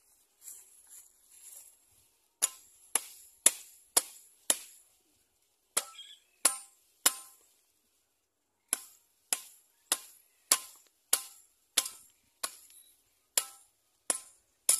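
A machete striking at a barbed-wire fence on a wooden post: sharp, ringing metallic knocks, about two a second, in three runs with short pauses between. Soft rustling comes before the first strike.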